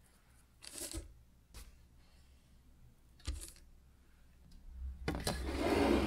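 Baking parchment on a metal baking tray rustling in short bursts as it is handled, with a couple of light knocks. The longest, loudest rustle comes near the end.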